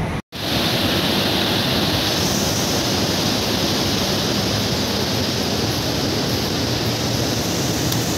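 Fast mountain river rushing over boulders: a steady, loud hiss of white water, with a brief drop-out just after the start and a brighter hiss from about two seconds in.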